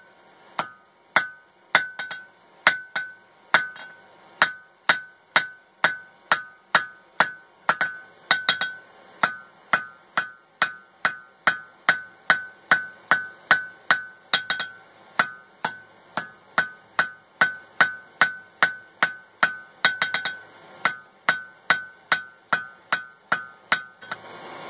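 Hand hammer striking red-hot coil-spring steel on an anvil in a steady rhythm of about two blows a second, each blow leaving a short ring from the anvil. The steel is being drawn out into a slitting chisel.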